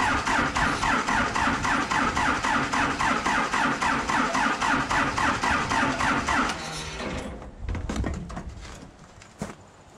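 Cold-soaked non-turbocharged four-cylinder Cummins 4B diesel in a forklift cranking over on its starter in a quick, even chugging rhythm of compression strokes, without catching. The cranking cuts off about six and a half seconds in, followed by a few low thumps and scuffs.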